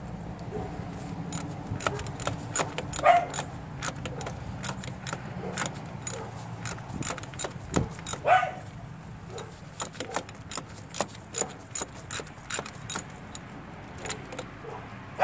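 Irregular metallic clicking and clinking of a ratchet wrench and tools being worked on engine bolts, with two short squeaks about three and eight seconds in.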